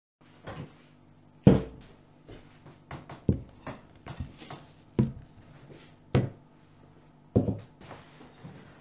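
Dishes, a wooden chopping board and a knife set down one after another on a tabletop: about six sharp knocks and clunks, the loudest about a second and a half in, with smaller clatters between, over a low steady hum.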